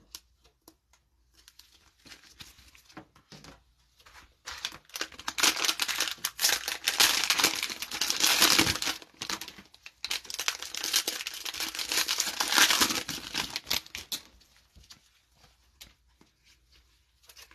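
Cellophane wrapper of a Mosaic football card cello pack being torn open and crinkled by gloved hands. The crackling comes in two long stretches, starting about five seconds in and again about ten seconds in, with a few soft card-handling clicks before it.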